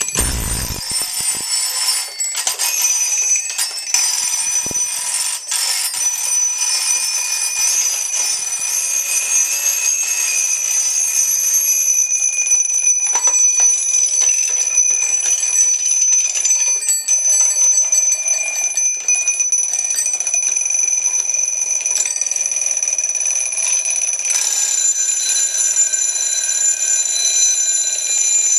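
Several alarm clocks ringing at once in a continuous, overlapping jangle of high bell tones, with a few knocks in the first few seconds. The mix of pitches changes near the end as one ringing gives way to another.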